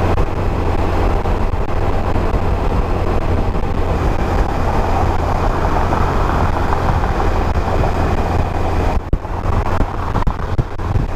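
Steady wind and road noise on a motorcycle-mounted microphone at highway speed, over the low drone of a 1991 Kawasaki Voyager's engine. The noise dips briefly about nine seconds in.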